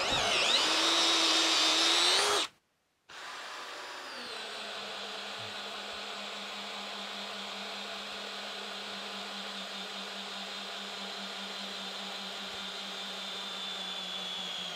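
Cordless drill spinning a 7.5-inch auger bit into a log, loud for about two and a half seconds and then cut off suddenly. A second cordless drill takes over, running steadily under load as it bores into the wood.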